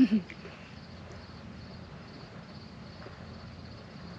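Crickets chirping steadily in a faint, even background, with a brief loud low sound at the very start.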